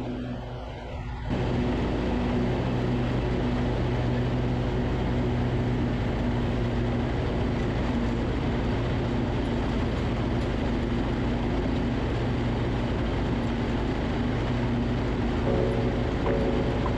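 Lawn tractor engine running steadily while mowing, its tone and the deck noise holding even throughout. The sound jumps abruptly louder about a second in.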